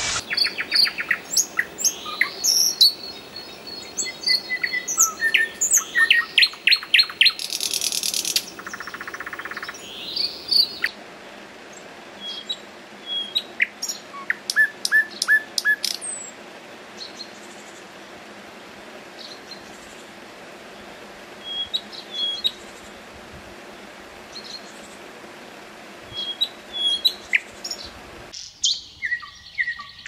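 Common nightingale singing: a dense run of varied phrases with fast trills, a rapid buzzy rattle and clicking notes over the first ten seconds or so, then sparser short whistled phrases separated by pauses.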